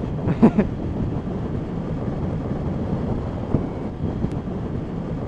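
Steady wind rush on the helmet microphone of a motorcycle at road speed, with the motorcycle's engine running underneath.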